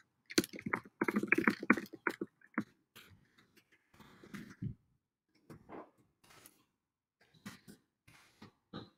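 Typing on a computer keyboard: a quick, irregular run of keystroke clicks, louder in the first few seconds and fainter toward the end.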